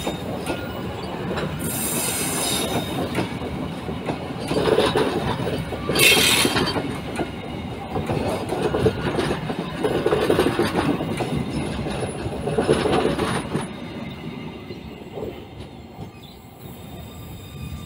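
Passenger train wheels rolling over loose, hollow-sounding 'gongsol' rails on a station wye: a steady rumble with several louder clanking surges and wheel squeal. It grows quieter in the last few seconds.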